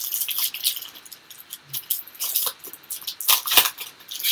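Trading cards being handled and slid against one another: an uneven run of short, dry rustles and scrapes, loudest about three and a half seconds in.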